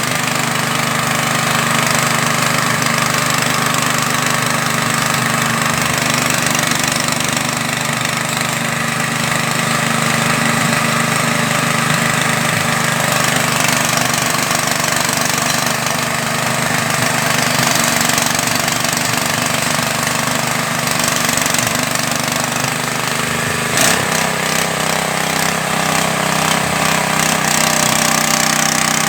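Floating fish-feed pellet extruder machine running steadily with a loud mechanical drone. Near the end there is a brief knock, and the tone shifts slightly.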